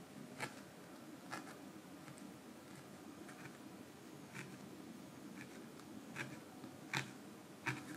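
Felting needle jabbing loose wool into a felt base, giving small irregular ticks about once a second, the two loudest near the end.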